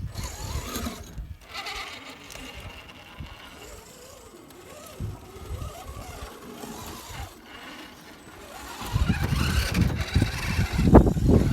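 Electric motor and gearbox of an RC rock crawler whining, its pitch rising and falling as the throttle is worked on and off. A louder low rumble comes in over the last few seconds.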